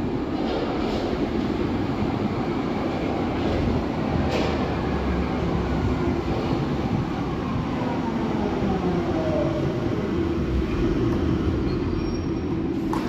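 Berlin U-Bahn F-series train running into an underground station and braking to a stop: a steady rumble of wheels on rail, with a whine that falls in pitch as it slows. There is a sharp knock about four seconds in and another near the end as it comes to rest.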